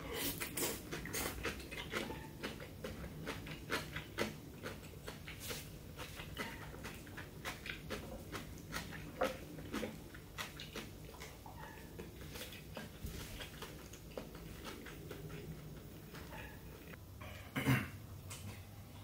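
Close-up eating sounds: a person chewing mouthfuls of stir-fry and brown rice, with the small clicks of chopsticks against the dishes, busiest in the first half. Near the end, a louder slurp as a bowl is lifted to the mouth.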